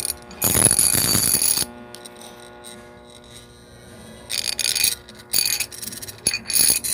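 Microwave oven transformer used as a pyrograph power supply, humming steadily and breaking into loud harsh buzzing bursts, one early and a longer run in the second half. This noise and vibration is the sign of a faulty supply, one to be discarded.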